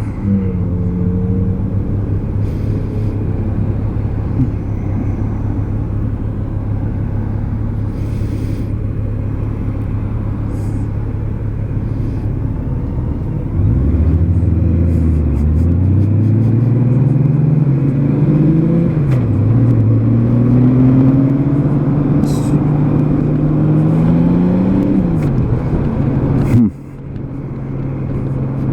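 2003 Honda Gold Wing's flat-six engine running at road speed with wind and road noise. About halfway through the engine gets louder and its pitch climbs, dipping twice as it shifts up through the gears. Near the end it drops off suddenly as the throttle closes.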